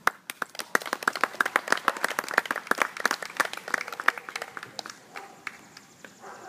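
A small crowd clapping. It starts suddenly with dense, irregular claps and thins out after about five seconds.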